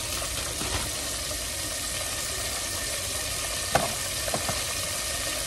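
Hot oil sizzling steadily in a deep pot as floured pieces of chuck steak deep-fry. A few short sharp sounds come about four seconds in.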